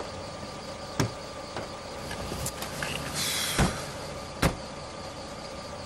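A car idling to a stop, with four sharp knocks of its doors spread over a few seconds. The loudest knock comes about three and a half seconds in, just after a short hiss.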